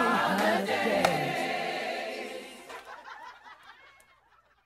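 Several voices singing together without instruments, mixed with laughter, fading away over the last two seconds.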